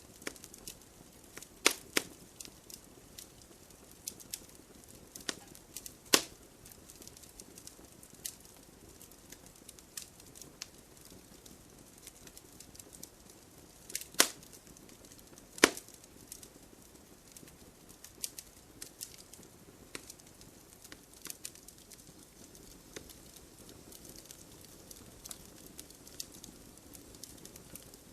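Wood campfire crackling: a steady run of small crackles with about five louder sharp pops spread through it, over a faint steady hiss.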